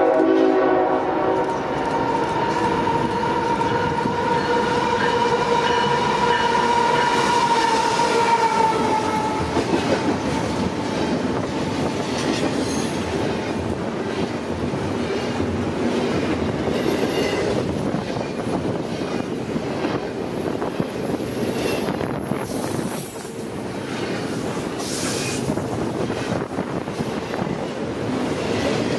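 A train passing: its horn cuts off just after the start, then a steady high squeal goes on for about nine seconds, dropping a little in pitch before it fades. After that the cars keep rumbling and clattering over the rails.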